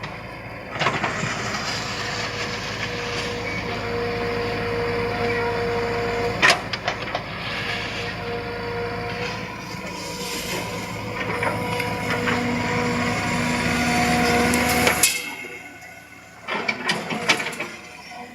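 Backhoe excavator's engine and hydraulics running with several steady whining tones, a sharp metallic clank about six seconds in. The machine sound drops off suddenly about fifteen seconds in, followed by a few more clanks near the end.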